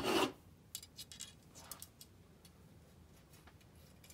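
Rustling handling noise that stops about a third of a second in, then a few faint, irregularly spaced light clicks and ticks.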